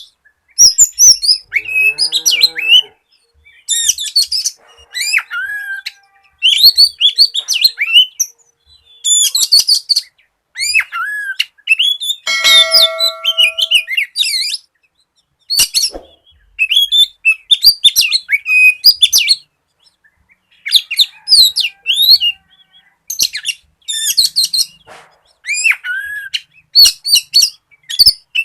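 Oriental magpie-robin singing vigorously: rapid bursts of high whistles, trills and chirps separated by short pauses, with a lower, steady buzzy note about halfway through.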